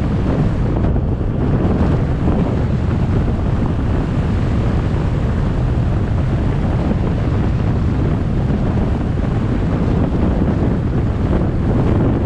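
Steady wind rush and low rumble on the microphone of a camera riding on a vehicle driving along a road.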